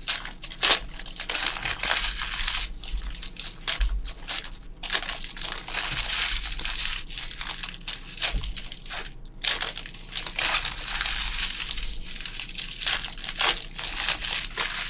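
Plastic shrink wrap on sealed trading-card boxes being torn open, crinkling and crackling continuously with bits of tearing.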